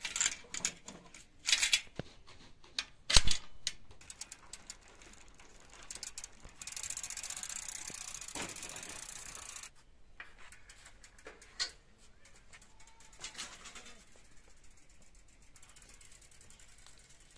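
A key turning in a bicycle's rear-wheel lock, with metal clicks and a loud clack about three seconds in as the lock springs open. Then the rear wheel spins freely for about three seconds with the rapid ticking of the freewheel ratchet, followed by a few scattered light clicks.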